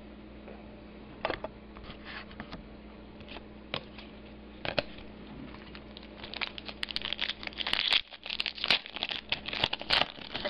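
Trading-card pack wrapper crinkling and tearing as cards are handled. A few light clicks and rustles at first, then dense crinkling over the last four seconds or so.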